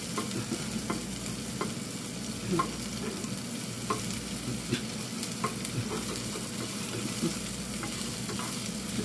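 Sliced onions and garlic sizzling in basil olive oil in a frying pan, with a spatula scraping and tapping the pan as they are stirred, a scrape every second or less.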